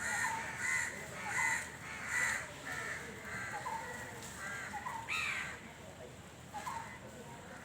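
Crows cawing repeatedly: a run of short, harsh calls about once or twice a second, with short rising chirps between them.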